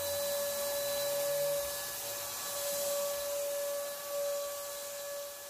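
Canister vacuum cleaner running, with a steady motor whine over a hiss of rushing air.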